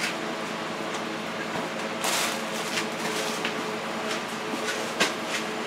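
Steady mechanical hum, with a brief rustle about two seconds in and a light click about five seconds in.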